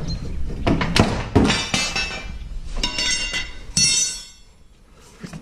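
Steel pry bar levering down the rear lower control arm of a BMW Z4 while the stock rear coil spring is worked free: a run of metal clanks and knocks with ringing, dying down about four seconds in.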